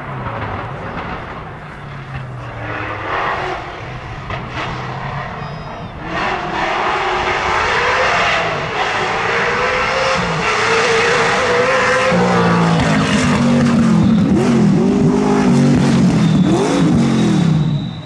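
Firenza Can Am rally car's Chevrolet V8 with side-exit exhaust, extremely loud and approaching at speed. It is faint at first and grows louder about six seconds in. In the last few seconds the revs rise and fall repeatedly as it comes close.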